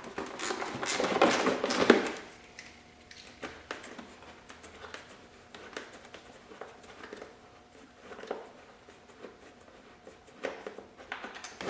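Hands-on workshop noise from removing a dirt bike's plastic rear fender: a loud scraping, rustling stretch of plastic and tools being handled from about half a second to two seconds in, then scattered light clicks and knocks of bolts and a wrench.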